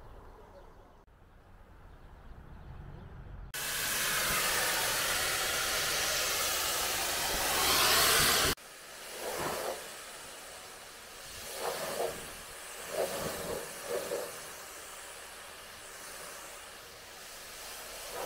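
High-pressure washer jet hissing as it rinses snow foam off a car. It is loud for about five seconds, then cuts off sharply; after that the spray hisses more softly, with a few brief louder swells.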